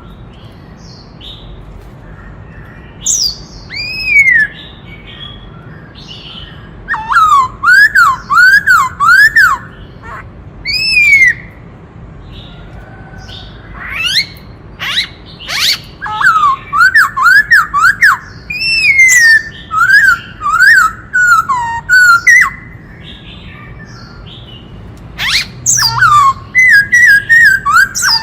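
Black-throated laughingthrush singing: loud bouts of quick, repeated rising-and-falling whistled notes mixed with sharp high calls, with pauses of a second or more between bouts.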